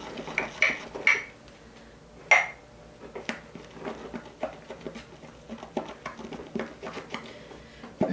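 Badger-hair shaving brush worked briskly around a small bowl to whip shave soap into lather: irregular light clicks and taps of the brush against the bowl, with a sharper knock about two seconds in and another at the end.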